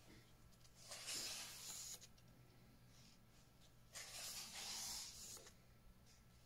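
Paper pages of a paperback workbook being turned by hand: two quiet rustles, about a second in and again about four seconds in.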